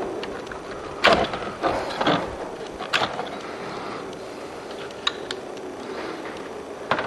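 Irregular knocks, clicks and rattling of parts and tools being handled while a pickup truck's door panel is taken apart, the loudest knock about a second in.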